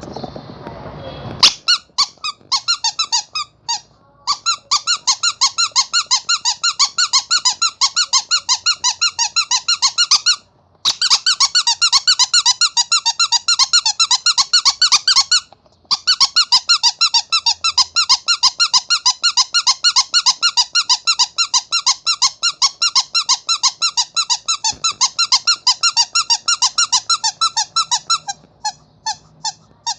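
Rubber monkey squeaky toy squeezed over and over in quick succession, a few high squeaks a second, with two brief pauses. It opens with a short noisy rustle.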